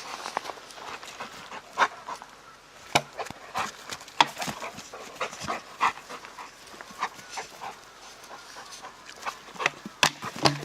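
A dog panting, with a run of short, irregular breaths and scuffs.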